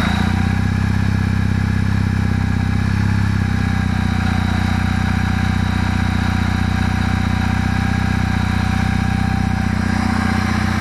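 Kawasaki W650 air-cooled parallel-twin engine idling steadily just after a cold start. Running cold, it has none of the dull knock from the camshaft drive gears that the owner hears once it warms up.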